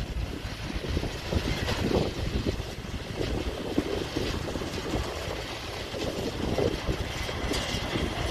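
Farm tractor engine running, with irregular clatter over its steady low running noise.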